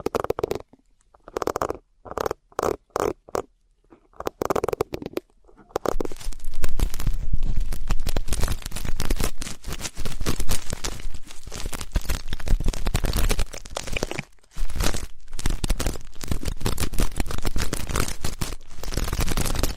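Ear-cleaning ASMR sounds close to the microphone: a run of short, separate rubbing strokes, then dense continuous crackling and scratching with a brief break about two-thirds of the way in.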